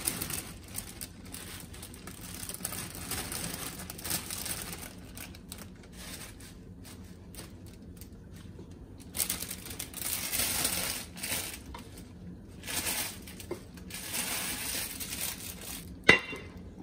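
Plastic bag of spinach crinkling in irregular spells as the leaves are shaken out into a pot and pressed down with a wooden spoon. About sixteen seconds in, a single sharp clank as a lid is set on the pot.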